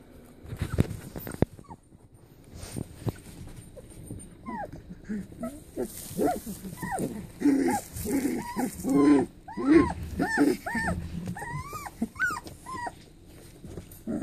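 Three-week-old Goldendoodle puppies whining and whimpering: a string of short, high cries that bend up and down in pitch, coming thick and fast from about a third of the way in. A few soft knocks near the start.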